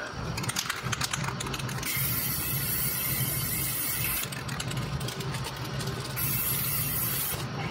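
Aerosol can of spray-on lacquer, worked with a trigger spray handle, hissing in two sprays: one starting about two seconds in and lasting about two seconds, a shorter one near the end. Rapid clicking and rattling fills the gaps between the sprays.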